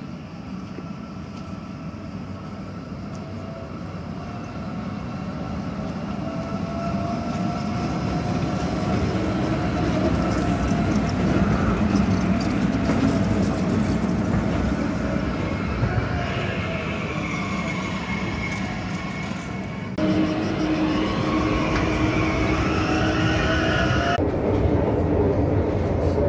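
Tram drawing in and passing close, its rumble and gliding electric motor whine growing louder over the first ten seconds. Later, after abrupt cuts, the steady hum and whine of the tram from inside as it runs.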